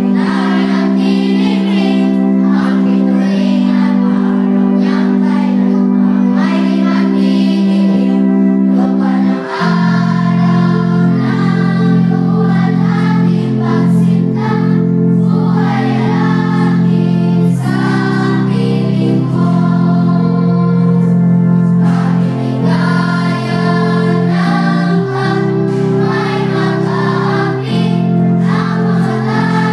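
A group of children singing together, hand on heart, over held instrumental chords. A deeper bass note joins the accompaniment about ten seconds in.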